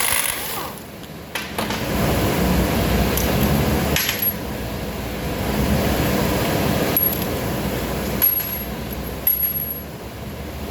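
Metal parts and tools clinking and clattering, with several short bright clinks and a few sharp knocks.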